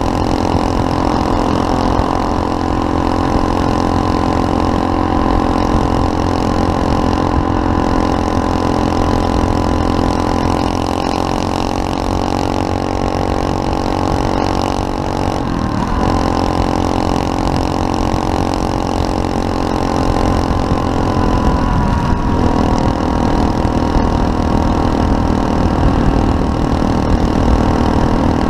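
SSR 125cc pit bike's single-cylinder four-stroke engine running under way at a fairly steady pitch, with a brief break in the note about halfway through and again about two-thirds of the way in.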